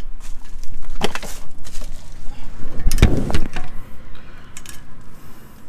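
Hand tools knocking and clinking against metal: a sharp clink about a second in, a heavier knock about three seconds in, then a few lighter clicks.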